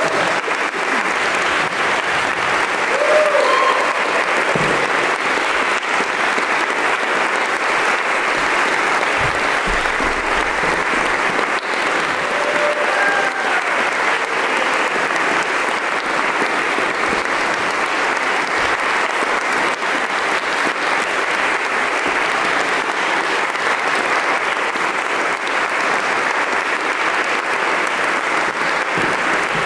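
Audience applauding steadily in a dense, even clapping, with a couple of brief cheers from the audience about three seconds in and again near the middle.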